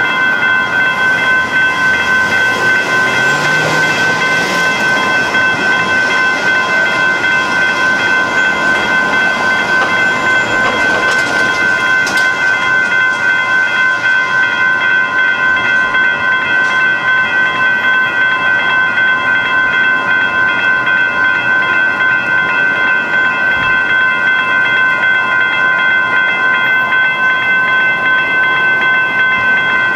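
Railroad crossing warning bell ringing continuously in rapid, even repeated strokes, its steady metallic tones sounding while the crossing signals are active.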